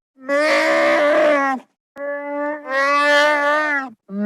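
Chewbacca's Wookiee vocalisation: two long, drawn-out moaning calls held at a steady pitch, with a short gap between them about halfway through.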